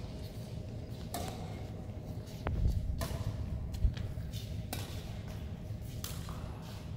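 Badminton rally: a shuttlecock struck back and forth with rackets, sharp pops about every second or so in a large sports hall, over a steady low rumble.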